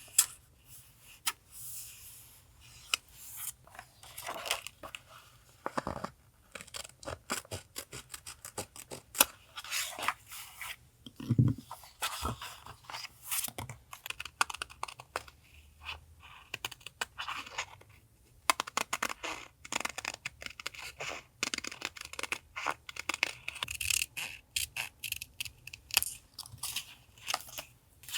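Close-up paper handling for a collage: sheets and stickers being torn, scraped and rustled in quick, irregular crackles and clicks, with a few soft knocks on the desk.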